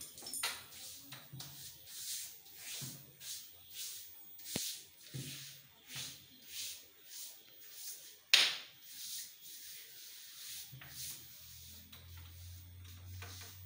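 Hands rubbing and smoothing printed wallpaper flat against a wall: a run of short, dry swishes, about one or two a second, with one much louder stroke a little past the middle.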